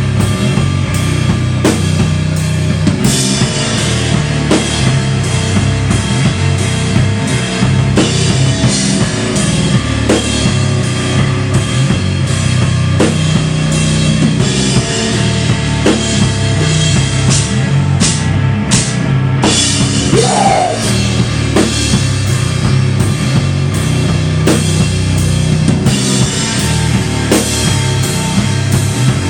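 Live rock band playing at full volume: a drum kit keeping a steady beat with bass drum and cymbals, under electric guitar and electric bass.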